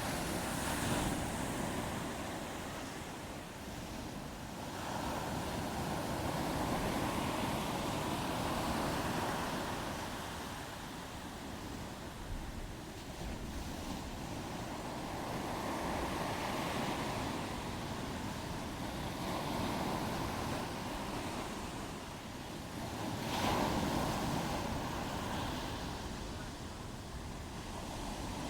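Ocean waves breaking and washing on the shore, swelling and easing every few seconds, with a stronger surge near the end, and some wind.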